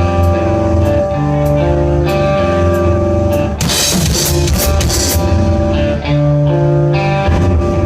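Live rock band playing: held guitar notes over a bass line and drum kit, with a stretch of cymbal crashes in the middle.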